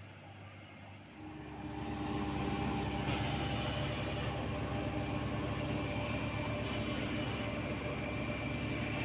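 Heavy road-paving machine's diesel engine running, getting much louder about a second in and then holding steady, with a high whine over the engine and a hiss that comes and goes.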